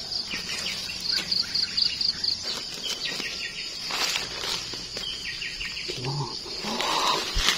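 Insects trilling steadily with a high pulsing chirp about five times a second, and birds calling in short runs of falling notes. Brief rustling of leaf litter comes about halfway through and again toward the end, as mushrooms are pulled up by hand.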